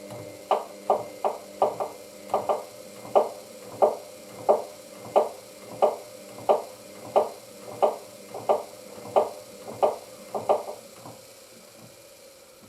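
Hoover DYN9144D3X washing machine turning its drum during a load-balancing attempt before the intermediate spin. A steady motor hum runs under regular knocks, about one and a half a second, which stop about 11 seconds in.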